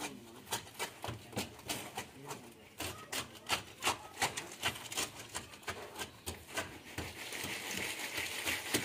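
A wooden rod working fresh concrete down through a steel rebar cage to compact it, giving sharp knocks about two or three times a second. A steady hiss joins near the end.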